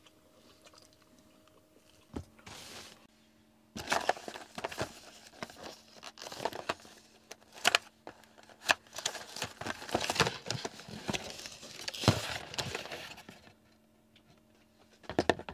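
Cardboard shipping box being opened and a clear plastic blister pack handled: a run of crinkling, tearing and crackling rustles with small clicks, starting about four seconds in and lasting about ten seconds.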